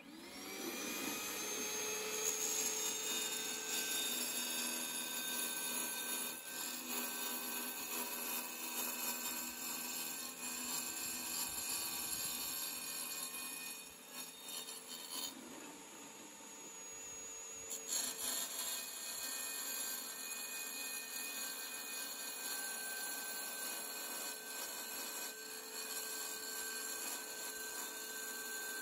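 Titan 500 W electric wet tile saw spinning up over the first couple of seconds, then running steadily as a ceramic wall tile is pushed through its water-cooled blade in a wet cut.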